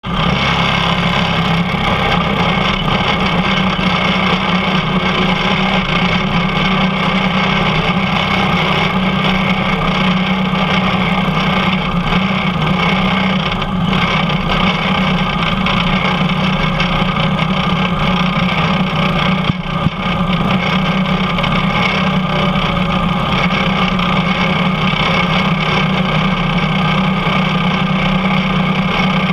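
Racing kart's engine running at a steady speed, heard from on board the kart, with a brief dip in level about twenty seconds in.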